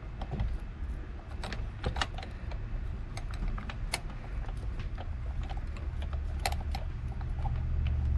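Scattered light metallic clicks and taps of hand tools and small parts as a steering-wheel bracket is worked loose, over a steady low hum.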